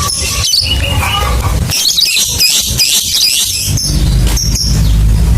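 Lovebird chattering in quick, high squawking chirps, with a dense run of fast notes from about two to four seconds in: the long 'ngekek' call. A low steady hum runs underneath.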